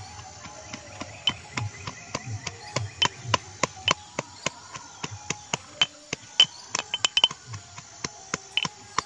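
Metal pestle pounding green chillies in a small metal mortar: a quick, uneven run of sharp metallic knocks, several a second, some with a brief ring.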